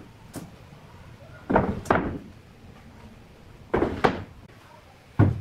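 A few short knocks or bangs, coming in pairs about two seconds apart, with a low, quiet background between them.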